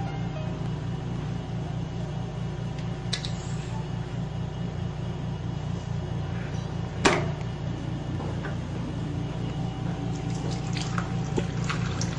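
Steady hiss of background noise, with small plastic clicks and taps from a toothpaste tube and toothbrush being handled at a sink. The loudest is one sharp click about seven seconds in.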